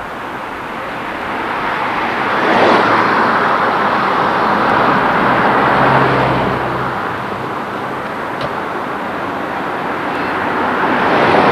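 Street traffic: a motor vehicle passes with a rush of engine and tyre noise that swells over a few seconds and fades, and another swells in near the end.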